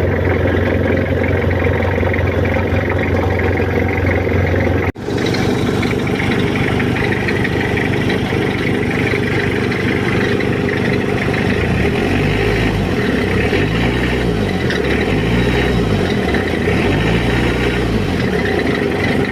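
Mitsubishi L300 van's engine running steadily. After a sudden break about five seconds in, it runs on, and in the second half the engine speed rises and falls several times, about once a second, as it is revved.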